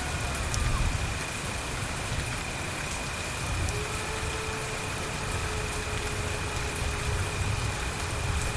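Steady rain falling on surfaces, with a low rumble underneath. Faint long held tones sit in the mix, a lower one coming in about four seconds in.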